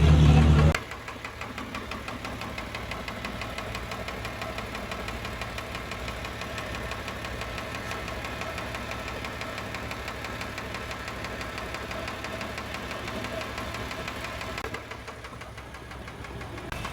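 Isuzu 6HH1 six-cylinder diesel engine running with a steady rhythmic knock, which the mechanic traces to cylinders 1 and 2, worst in number 1. A brief loud burst comes in the first second, and the engine sound drops a little near the end.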